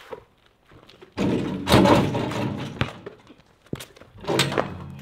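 A basketball thudding against a portable hoop's backboard and rim, with the hoop rattling and the ball bouncing on a concrete driveway: several sharp knocks and a longer loud rattle from about a second in.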